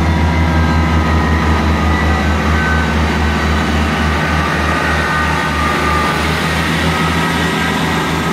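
British Rail Class 158 diesel multiple unit pulling away from a station: its underfloor diesel engines run under power with a loud, steady low drone that pulses, and fainter higher tones above it.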